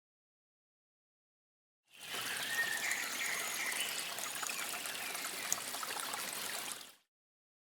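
River water flowing and babbling over stones, a steady trickling rush that starts about two seconds in and cuts off abruptly about five seconds later.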